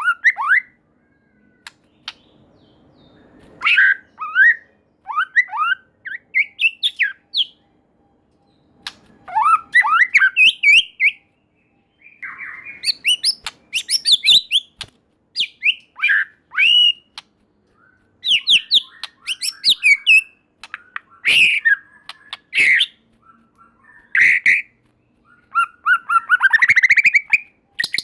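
White-rumped shama singing: varied phrases of rising and falling whistles and fast runs of repeated notes, each phrase a second or two long with short pauses between.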